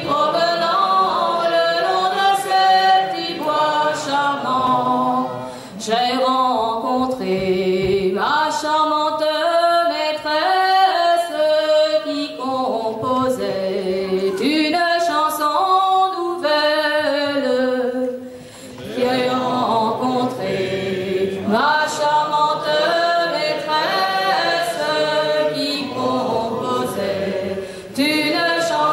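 Unaccompanied traditional Gallo song sung in call and response: a lead singer's lines are answered by the audience singing together. There are two short breaks between verses.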